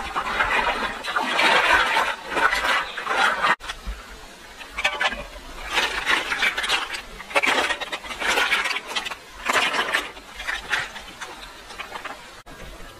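Water splashing and sloshing as a basket of river snails is swished in a shallow stream. After a cut, a run of short clinks and splashes about once a second as snails are dropped one by one into a metal pan of hot water over a wood fire.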